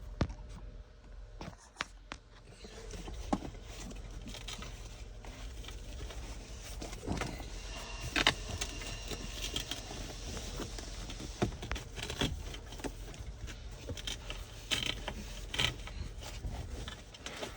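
Leather seat cover being stretched and worked by hand back over a truck seat's foam cushion: irregular rustling and scraping with scattered small clicks and knocks.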